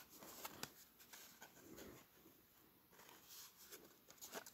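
Faint rustling and light clicks of a cardboard-backed plastic blister pack being handled and turned over in the hands.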